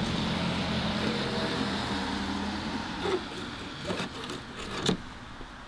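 A motor vehicle's engine hums steadily and fades away about halfway through. Three sharp clicks follow, about three, four and five seconds in, as the trim and blade are handled.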